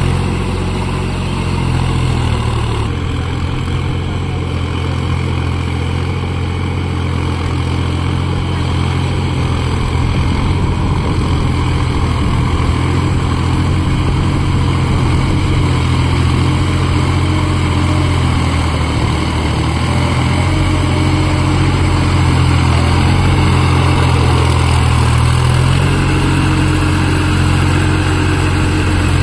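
Massey Ferguson 4WD tractor's diesel engine running steadily under load while pulling a rotary tiller through wet mud. The engine grows louder near the end as the tractor passes close.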